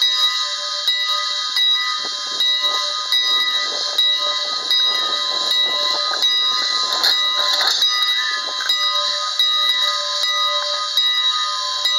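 Locomotive bell ringing steadily in an even, repeating rhythm while the locomotive backs up to couple, with a louder swell of rail and machinery noise about seven seconds in as the couplers come together.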